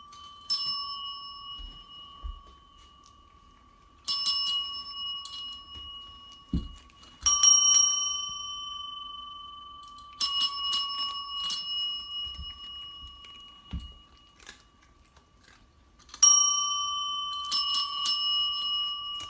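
Chrome desk service bell struck again and again, each ding ringing on with a clear, steady tone. The dings come in little clusters of two or three, with quiet gaps of a few seconds between clusters.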